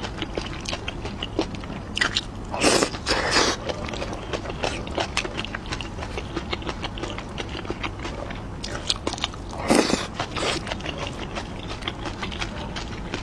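Close-miked chewing and biting, with many small wet mouth clicks. Louder noisy bursts come a few seconds in and again near the end.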